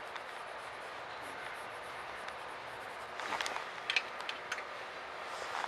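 Steady running noise inside a commuter train car in motion, with a few sharp clicks and rattles about three to four and a half seconds in.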